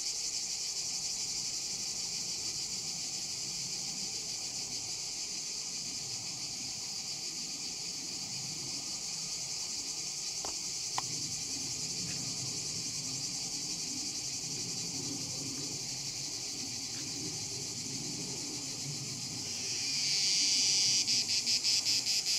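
A steady chorus of insects trilling high, with a louder, pulsing insect call coming in near the end. A single faint click about halfway through.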